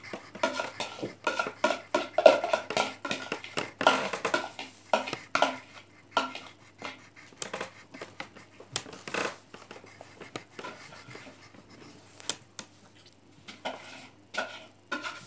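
Drawing on paper at a tabletop close to the microphone: scratchy strokes with many scattered light knocks and clicks, busiest in the first half.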